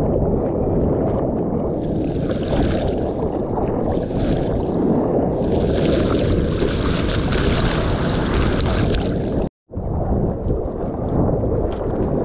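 Surf water rushing and wind buffeting on a GoPro's microphone, loud and steady, with a hissing wash of whitewash from about two seconds in. The sound cuts out completely for an instant about three-quarters of the way through, then the low buffeting returns.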